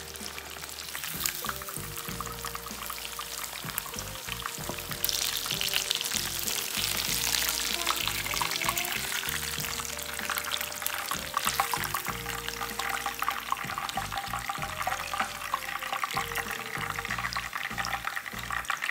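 Breaded chicken cutlet deep-frying in a pan of hot oil: a dense, steady crackling sizzle that grows louder from about five seconds in. Soft background music plays underneath.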